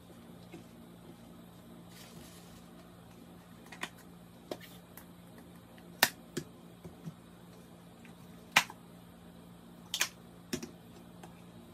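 A handful of sharp clicks and light taps, a second or more apart, from squeeze bottles and food being handled over a plate, with a faint steady low hum underneath.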